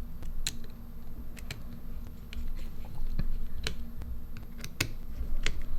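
Irregular light clicks and taps, about a dozen spread out at uneven intervals, from small tools and parts being handled at a repair bench. A low steady hum runs underneath.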